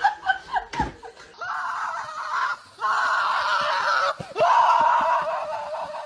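A person screaming: three long, rough screams of about a second each with short breaks between, the last one the loudest, after a second of short laughing and voice sounds.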